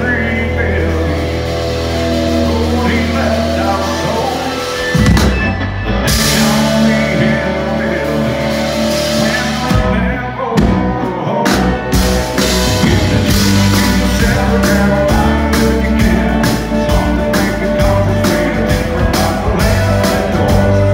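Live country band: electric guitar and fiddle over bass and drums, with a man singing. Long held bass notes at first, then the drums settle into a steady beat about halfway through.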